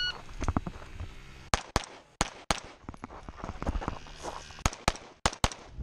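Red-dot pistol fired in quick double-taps: eight shots in four pairs, two pairs close together about a second and a half in, a pause, then two more pairs near the end. Footsteps on gravel fill the gaps as the shooter moves between targets.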